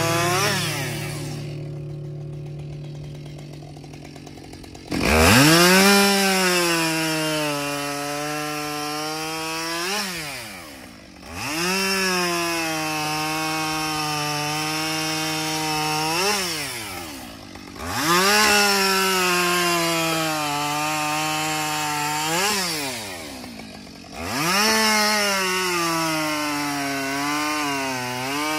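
Husqvarna chainsaw bucking logs. It falls back to idle for a few seconds, then makes four cuts. In each one the engine revs up, its pitch sags under load in the wood, it rises again in a short free-rev as the chain breaks through, and it drops back to idle. The last cut is still going at the end.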